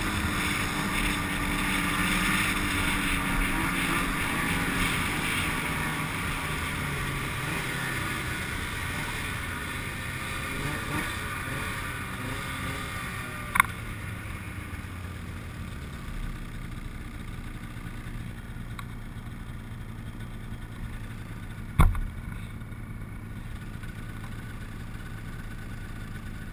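Snowmobile engines running: louder and busier early on while moving, then easing into a lower steady idle as the sled comes to a stop. Two sharp clicks, about halfway through and near the end.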